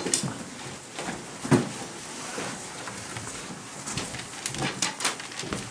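Scattered knocks, scrapes and rustles as tall fabric-covered scenery panels are turned around by hand, with the loudest knock about one and a half seconds in and a few more near the end.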